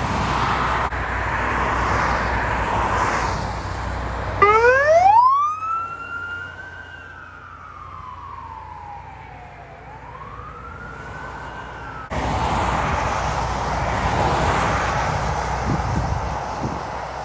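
Road traffic noise, then an ambulance siren wailing about four seconds in: a quick rise in pitch, a slow fall and another rise. The siren cuts off suddenly about twelve seconds in, and the traffic noise returns.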